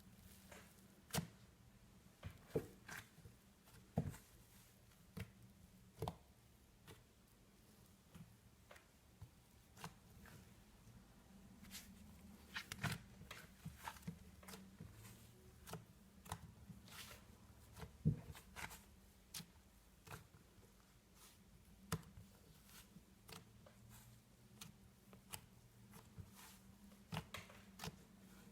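Hands squishing and poking butter slime: scattered soft clicks and sticky pops at irregular intervals, over a steady low hum.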